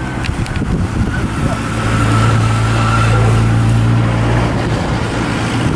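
A motor vehicle engine passing close by, its steady low hum swelling about two seconds in and easing off near the end.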